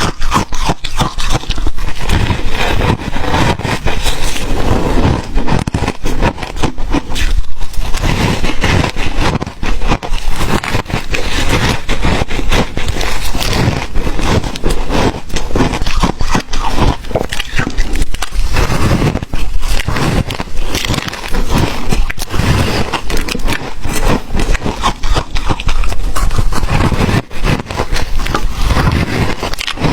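Crunchy ice being bitten and chewed close to the microphone: a dense, irregular run of loud cracks and crunches with no pause.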